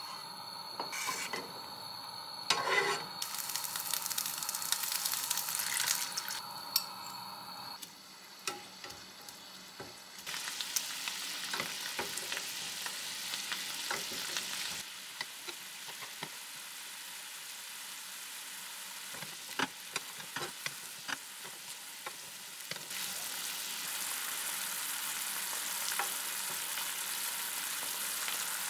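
Toothfish steak and sliced onion sizzling in a frying pan, the soy sauce around them bubbling, with sharp clicks and scrapes of a metal spoon and spatula against the pan as the sauce is spooned over the fish. The sizzle jumps in loudness at several points.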